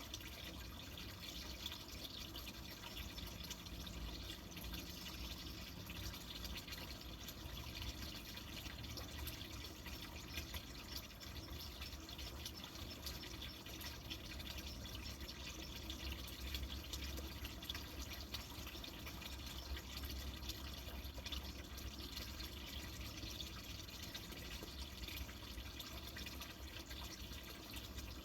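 Flowing water trickling and dripping steadily.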